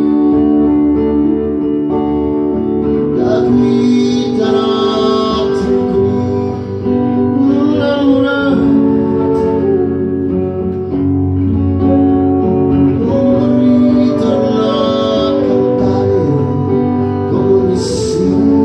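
Acoustic guitar and transverse flute playing a song together live, the flute holding a melody line over the guitar.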